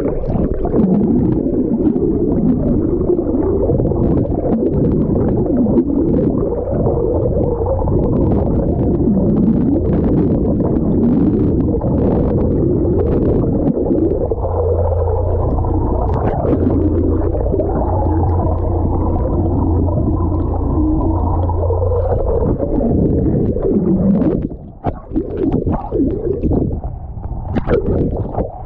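Muffled rushing and gurgling of water as heard by a camera held underwater in the sea, with a steady low hum joining for several seconds in the middle. Near the end it turns choppy, with short sharp splashes as the camera breaks the surface.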